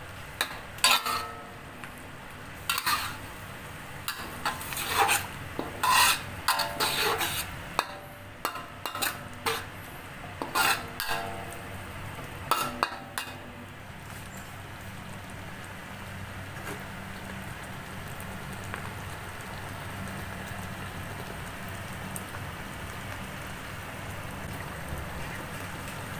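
Metal spatula scraping and clinking against a stainless steel wok, stirring fried pork pieces through a thick sauce; the strokes come often in the first half and thin out about halfway. A steady low hum then carries on underneath.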